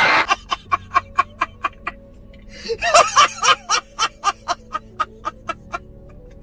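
Comic meme sound clip: short, clipped pitched bursts like a chopped laugh or vocal sample, about four a second, over a steady low drone, with a denser run about three seconds in. The bursts stop about a second before the end.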